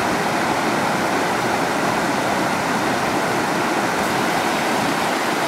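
Creek water rushing over a small falls of boulders and logs, a steady unbroken rushing.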